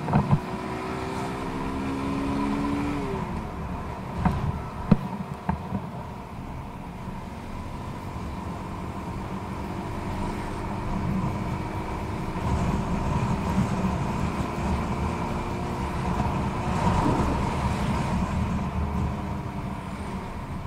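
Motorcycle engine running under way. Its pitch climbs for about three seconds, drops sharply, then climbs slowly again later on, over a steady rumble of wind and road. Two sharp knocks come about four and five seconds in.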